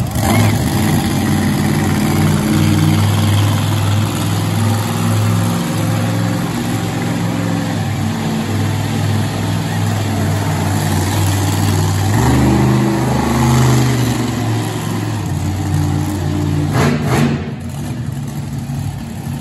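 Monster truck's big engine running at low speed, its pitch rising and falling as the throttle is worked. A short rush of noise comes about 17 seconds in.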